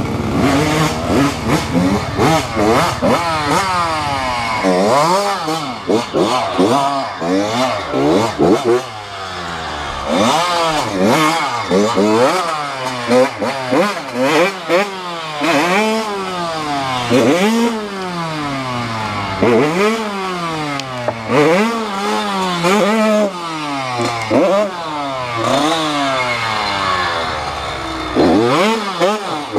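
Off-road motorcycle engine revving up and down over and over, its pitch rising and falling about once every second or two.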